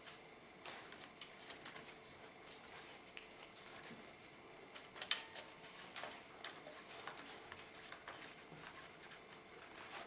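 Light, irregular clicks and taps of hands working on a laptop's plastic casing and small parts, with one sharper click about five seconds in.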